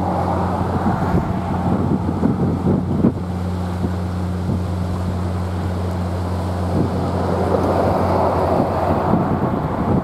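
Wind buffeting the microphone in uneven gusts over a steady low hum.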